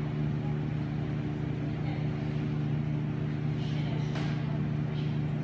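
Steady low mechanical hum made of several even, unchanging tones, with a few faint brief sounds over it.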